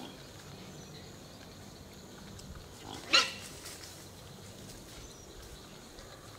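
A wild hog gives one short, sharp squeal about three seconds in, over a quiet background.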